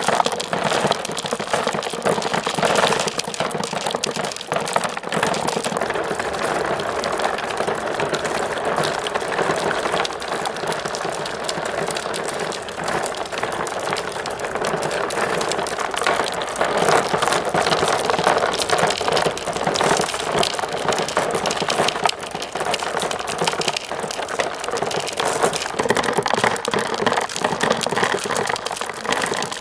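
Marbles rolling and clattering down plastic marble-run slopes, a continuous dense rattle of many small clicks.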